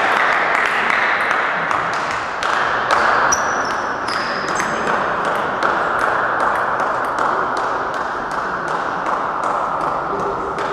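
Table tennis balls clicking, a few sharp ticks a second, over a steady hiss of hall noise that slowly fades. A few brief high squeaks come about four seconds in.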